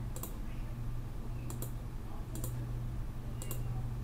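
Computer mouse clicking, about four sharp clicks roughly a second apart, placing balloon annotations, over a steady low hum.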